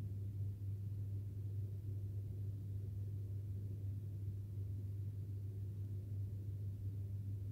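Steady low hum with faint room noise, unchanging throughout.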